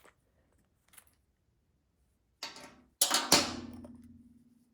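A small metal part clinks twice against a hard surface. The second knock leaves a steady ringing tone that slowly dies away.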